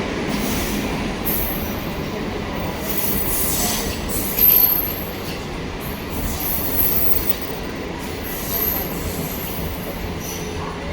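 MEMU electric multiple-unit train pulling into a station, its rumble steady while the wheels squeal on the rails, high-pitched squeals coming and going. A brief louder burst comes about four and a half seconds in.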